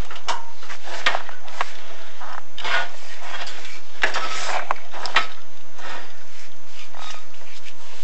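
Chimney inspection camera and its cable scraping and rubbing against the clay flue tiles as they are lowered down the flue: irregular scrapes with sharp knocks about a second in and about five seconds in.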